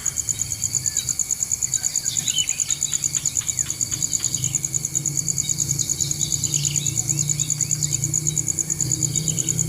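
Insects, crickets or cicadas, trilling steadily in a high, rapidly pulsing buzz, with a few short bird chirps a couple of seconds in.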